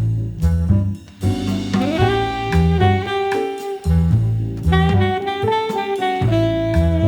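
Background jazz music with saxophone playing held notes over bass and drums.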